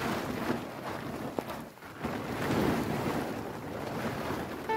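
A large plastic tarp rustling and crinkling as it is pulled and folded up by hand, in irregular swells of noise.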